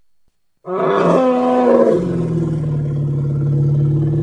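Elephant calling: a loud cry starts suddenly under a second in, then drops after about a second into a long, steady, lower-pitched roar.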